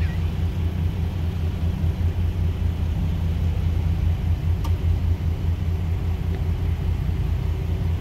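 A vehicle engine running at a steady idle, a low rumble, with a single sharp click about four and a half seconds in.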